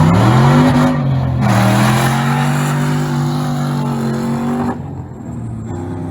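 Car engine revving up, then held at high revs for about three seconds with a rushing hiss over it, then let off abruptly near the end.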